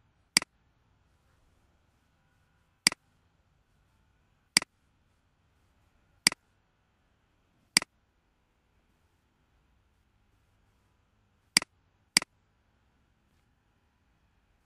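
Computer mouse button clicking: seven sharp single clicks at irregular intervals of roughly one to four seconds, the last two close together, with near silence between.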